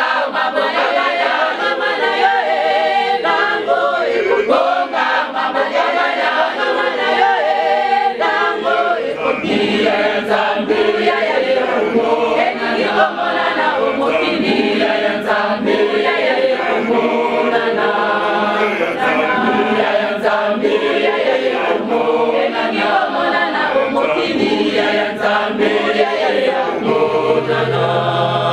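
Women's choir singing unaccompanied in Lingala, many voices together in a steady chant-like hymn.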